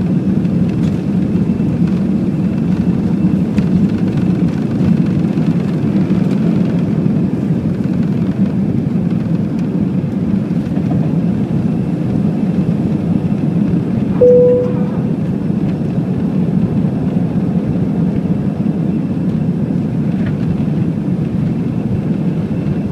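Airbus A320 cabin noise at takeoff thrust: a steady low rumble of the jet engines and rushing air, heard from a window seat over the wing during lift-off and initial climb. About two-thirds of the way in, a single short tone sounds briefly over it.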